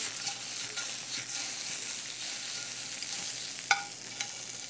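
Head-on shrimp sizzling in hot oil in a stainless sauté pan during a quick flash-sear, with metal tongs turning them. There are a few light clicks, and a sharper ringing clink of the tongs against the pan near the end.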